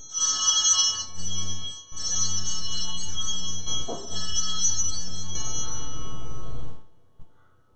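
Altar bells rung at the elevation of the chalice during the consecration, in a few long peals of bright, many-toned ringing with short breaks between them. The ringing stops sharply near the end.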